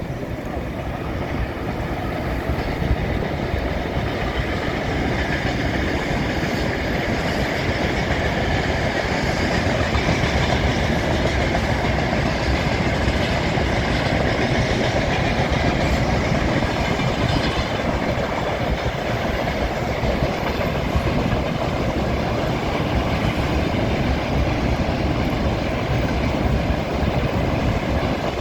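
Train running along the track, its wheels clattering over the rail joints. It grows louder over the first several seconds, then holds steady.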